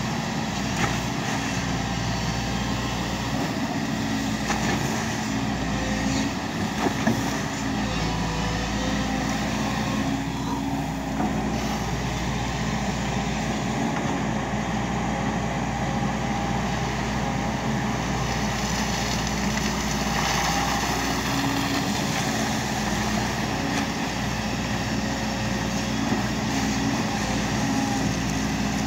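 Volvo crawler excavator's diesel engine running steadily while the machine digs and swings its arm, with a few short knocks in the first several seconds.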